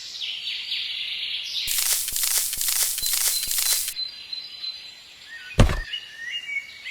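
Outdoor background with short bird chirps over a high hiss that cuts in and out abruptly. A single sharp thump comes about five and a half seconds in.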